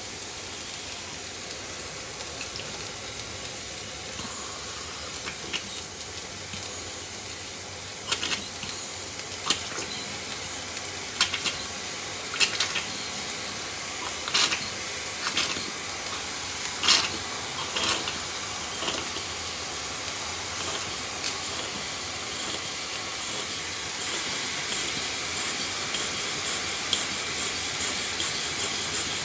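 Steam hissing steadily from a small model steam boiler's safety valve as it blows off at working pressure. A string of irregular sharp clicks sounds from about eight to nineteen seconds in.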